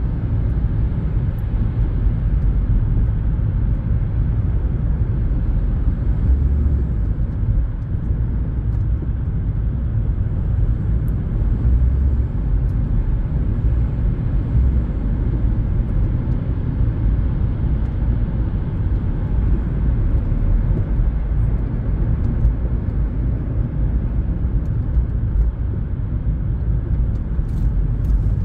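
Steady low rumble of road and engine noise heard inside a car's cabin while driving, with the sound mostly in the deep bass and no distinct events.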